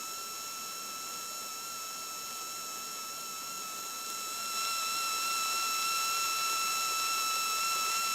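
Cessna 182 cockpit audio as picked up through the intercom: a steady hiss with a constant thin high whine. It gets slightly louder about four and a half seconds in.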